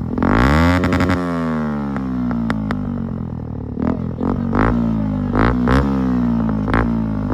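Bajaj Pulsar NS125 single-cylinder engine revved twice and let fall back each time, with sharp pops and crackles from the exhaust as the revs drop.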